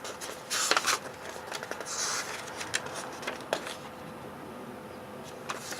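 Paper rustling as the pages of an instruction manual are leafed through, with two short swishes of a page turning early on and a few light taps and clicks.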